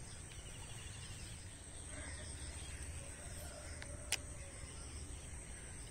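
Quiet outdoor background with a crow cawing faintly about two seconds in. A single sharp click comes just after four seconds as the baitcasting rod and reel are handled.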